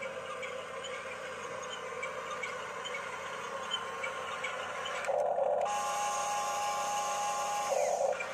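A Huina 1569 RC bulldozer's small electric motor runs for about three seconds, starting about five seconds in. It gives a short gritty burst, then a steady whine, then another gritty burst as it stops, over a steady low hiss.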